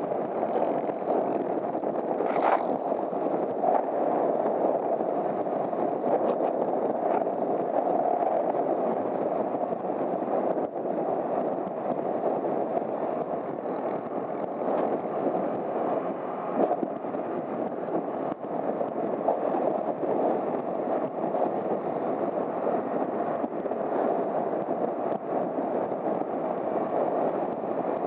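Steady wind rush and engine noise from a Honda CBR250R motorcycle being ridden, heard as a constant dense rumble that never lets up.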